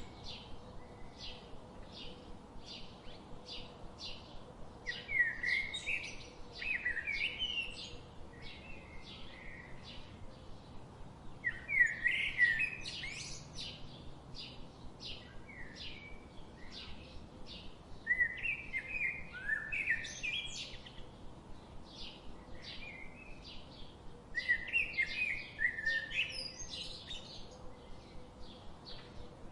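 Songbirds singing. One bird repeats a short, high note about twice a second without pause, while another sings a louder warbling phrase of a second or two four times, roughly every six seconds.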